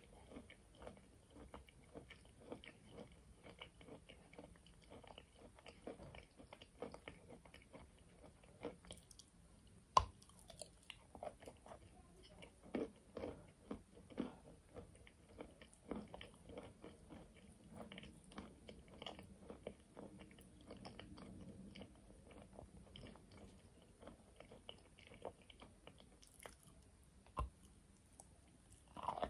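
Close-miked biting and chewing of chalk and clay, with a stream of small crunches and crackles and a sharper crunch about ten seconds in.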